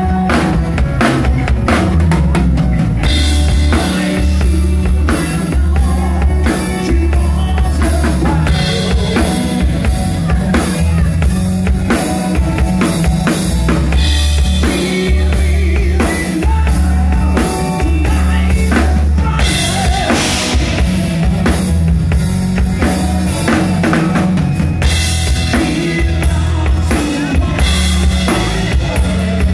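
Live rock band playing an acoustic arrangement: acoustic bass guitar, steel-string acoustic guitar and a drum kit keeping a steady beat, with a heavy bass line and loud, frequent drum hits.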